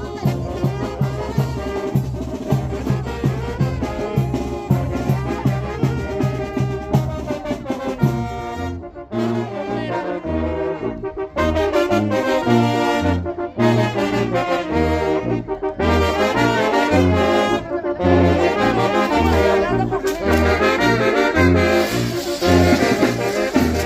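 Brass band playing dance music, trumpets and trombones over a pulsing low brass bass line, with fireworks spraying and hissing near the end.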